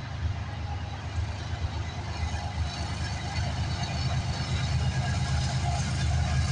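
Diesel locomotives of an approaching Norfolk Southern freight train, a low engine rumble growing steadily louder as the train nears.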